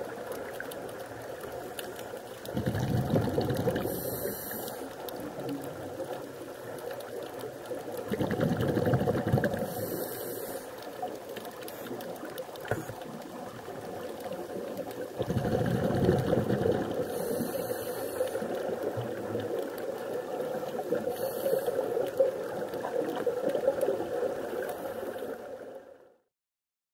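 Underwater sound of a scuba diver breathing through a regulator: long bursts of exhaled bubbles about every six seconds, each followed by a short hiss of inhaling, over a steady underwater hiss. The sound cuts off suddenly near the end.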